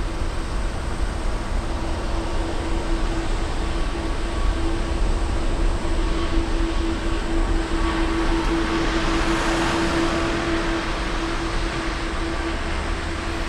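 AirAsia X Airbus A330's twin jet engines at takeoff thrust during the takeoff roll: a deep rumble with a steady hum. A broad hiss swells about two-thirds of the way in, then eases as the jet draws away.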